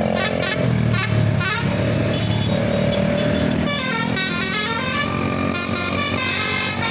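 Bus basuri telolet musical horn playing quick runs of stepping notes, then a longer multi-note tune starting a little past halfway, over the steady low rumble of vehicle engines.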